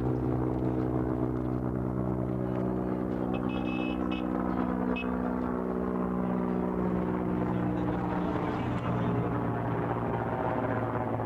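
A pickup truck's engine idling steadily, its pitch wavering slightly.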